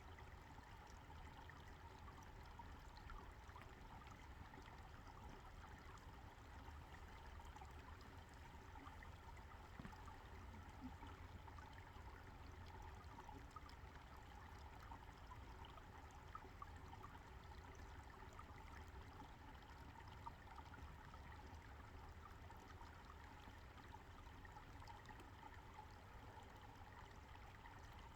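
Small creek flowing: a faint, steady trickle of running water.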